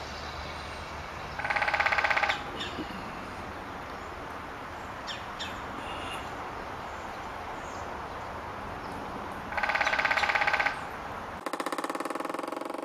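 Woodpecker drumming: rapid rolls of pecks on wood about a second long, one about a second and a half in and another near ten seconds, with a third starting near the end. Faint songbird chirps between the rolls.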